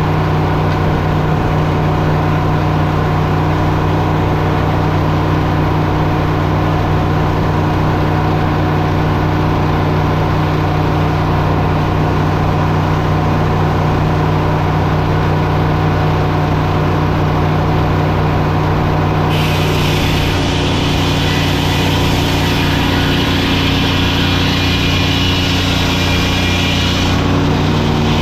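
Sawmill's engine running steadily at working speed. About two-thirds of the way in, a loud high hissing noise joins it for about eight seconds and then stops abruptly, as the saw cuts through a log.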